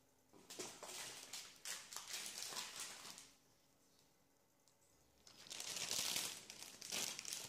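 Plastic grocery packaging crinkling and rustling as it is handled, faint, in two spells with about two seconds of quiet between them.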